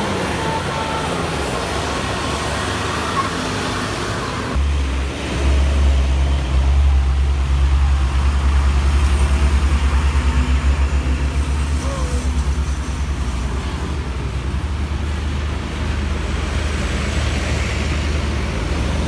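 Roadside traffic noise, then from about four and a half seconds in the deep, pulsing engine rumble of a heavy vehicle passing close by and carrying on to the end.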